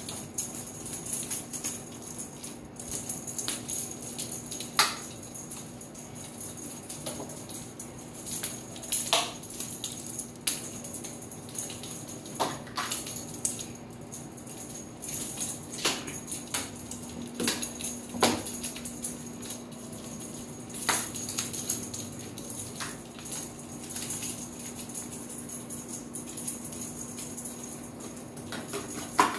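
A feather wand cat toy being shaken and batted about, with irregular sharp taps and clatters as a kitten pounces on the hard tile floor, over a steady high hiss.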